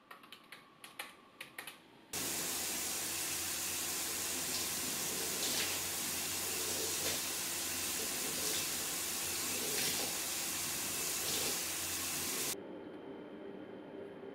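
A few seconds of typing on a laptop keyboard, then a shower running: an even hiss of water spray for about ten seconds that cuts off suddenly, leaving a quiet room.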